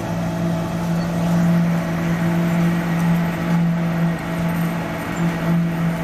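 Slipform concrete paver working: its engine and machinery give a steady, loud hum over a constant wash of mechanical noise.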